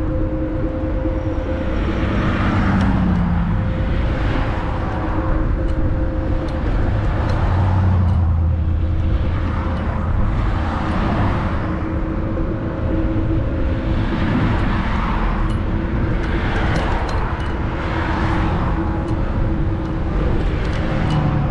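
Varla Eagle One electric scooter riding along a sidewalk: a steady hum from its hub motors over tyre rumble and wind rushing on the microphone, the rush swelling and fading every couple of seconds.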